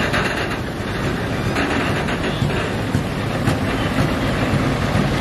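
Heavy-haul convoy passing close by: a steady rumble of the hauling trucks' engines and the many tyres of a multi-axle hydraulic modular trailer rolling under a load of about 1000 tonnes, with faint clicks and knocks.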